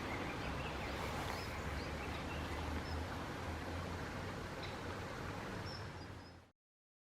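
Steady outdoor background noise with a low rumble and a few faint, short bird chirps; the sound cuts off abruptly near the end.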